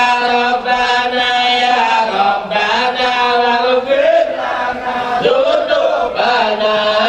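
A voice chanting loudly in long, drawn-out melodic lines, holding notes and bending between them.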